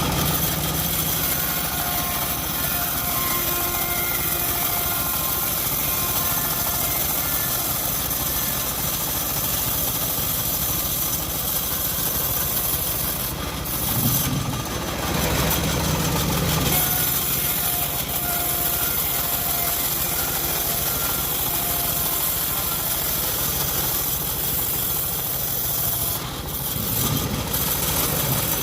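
Homemade engine-driven bandsaw sawmill running steadily, its blade sawing through an old teak log. The low hum swells briefly about halfway through.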